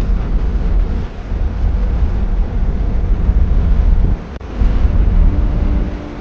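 Loud, steady wind rumble on the microphone mixed with the road noise of a moving car. It dips briefly about four seconds in.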